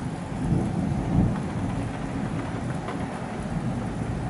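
Thunder rumbling, swelling to its loudest about a second in, over steady rain.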